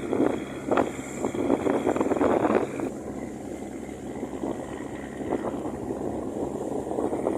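Steady drone of a motor vessel's engine under way, with rushing wind and water noise that is heavier for the first three seconds, then eases.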